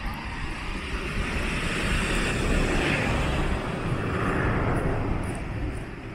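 A car passing close by, its road noise swelling over the first couple of seconds and fading away near the end.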